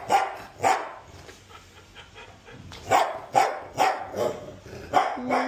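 Small dog barking in play with short, sharp barks: two barks, a pause of about two seconds, then four more in quick succession. Near the end comes a held, steady tone.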